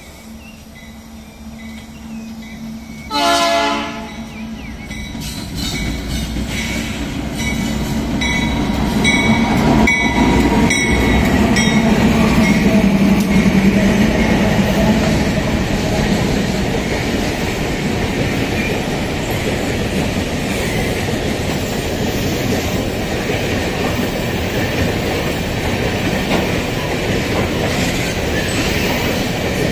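Diesel freight locomotive gives one short horn blast about three seconds in, then its engine grows louder as it runs past. A long train of empty gondola wagons follows, rolling by with a steady rumble and wheel clatter.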